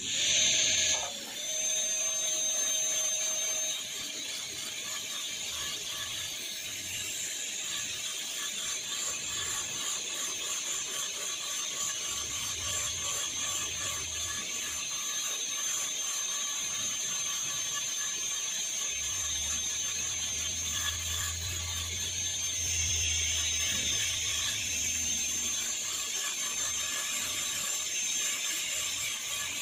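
High-speed dental handpiece (air turbine) with a diamond bur whining steadily as it grinds the chewing surface of a plastic typodont molar during occlusal reduction. It starts abruptly and runs with a thin, high-pitched tone over a hiss, growing slightly louder about two-thirds of the way in.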